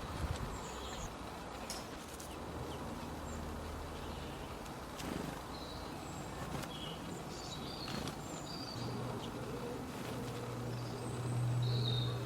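Small birds giving short, scattered high chirps over a steady outdoor background, with a few faint clicks. A low hum comes in near the end and swells.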